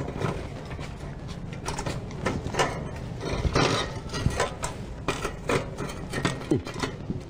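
Irregular metallic clicks and knocks from hands working on a bicycle's rear wheel.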